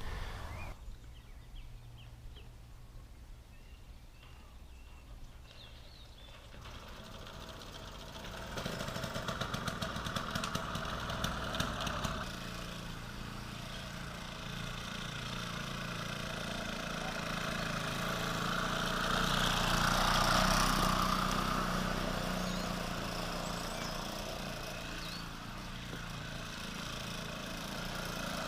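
Velo Solex 3800 moped's small 49 cc two-stroke engine starting several seconds in and running, its speed rising to a peak about two-thirds of the way through, then easing back.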